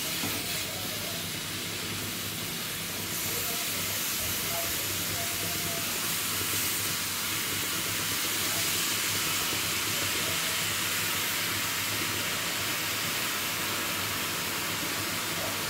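Freshly washed, still-wet chickpea leaves steaming and hissing in a hot pan. The hiss starts suddenly as the leaves go in, grows a little brighter about three seconds in, then holds steady as the water cooks off.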